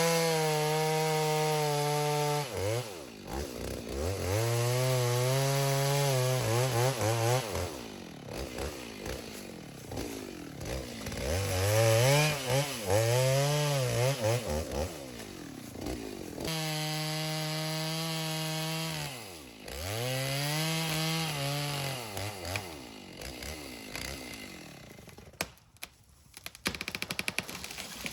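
Chainsaw cutting through a dead ash tree, the engine revving up and holding at high speed for several seconds at a time, falling back between cuts. Near the end the engine is quieter and there is a run of sharp cracks.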